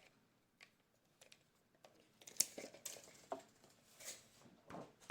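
Scattered light clicks and rustles of hand work with tools and material, with a sharper click about two and a half seconds in.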